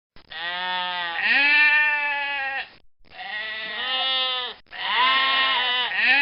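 A goat bleating: three long calls one after another with short breaks between, each wavering in pitch.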